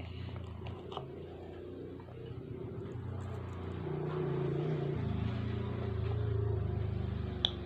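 A low, steady motor hum that grows louder about halfway through, with one sharp click near the end.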